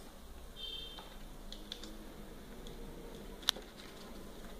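Faint clicks and light rattling of plastic Lego pieces being handled, with one sharper click about three and a half seconds in.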